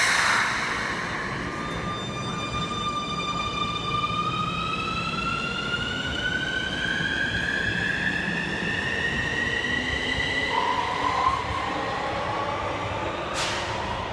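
Keikyu 1000 series electric train accelerating away from an underground platform: its traction inverter and motors give a whine of several tones that rises steadily in pitch for about ten seconds, with a second lower whine joining about ten and a half seconds in. A brief burst of hiss opens it.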